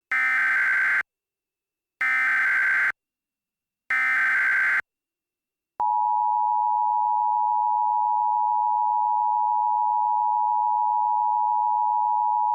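Emergency Alert System header: three short bursts of digital data tones, each about a second long, about two seconds apart. About six seconds in, the EAS attention signal starts, a steady two-tone alarm that holds unbroken.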